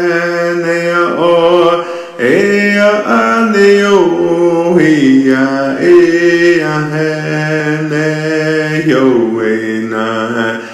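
Male voice chanting a Native prayer song for rain, holding long notes and sliding between pitches, with a short break for breath about two seconds in.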